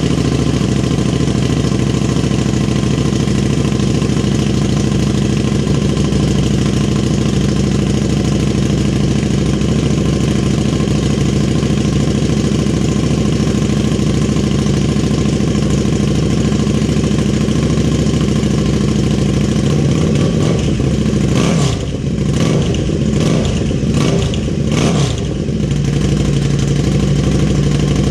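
2017 KTM 1290 Super Duke R's 75-degree V-twin, just started, idling steadily through a freshly fitted aftermarket Oopart exhaust, with a few short throttle blips a little after twenty seconds in.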